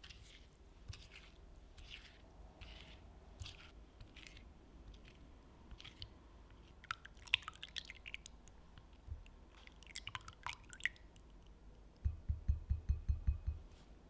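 A silicone spatula stirs a liquid coffee mixture in a glass bowl, making soft wet swishes about once a second. From about six seconds in come sharper clicks and scrapes of the utensil against the glass. Near the end there is a quick run of soft low taps.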